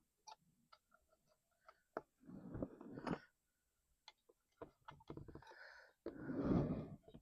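Scattered light clicks and taps of small parts being handled while working on an outboard motor, with two longer bursts of noise, about two seconds in and near the end.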